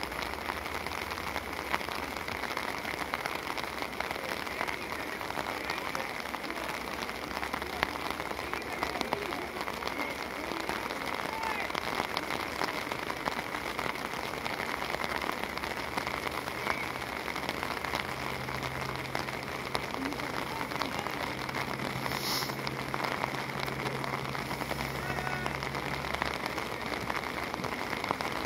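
Steady rain falling, a dense continuous patter of drops close to the microphone.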